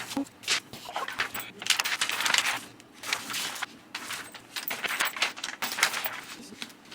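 Laminated paper sheets being handled: an irregular series of short rustles and scrapes of paper and plastic.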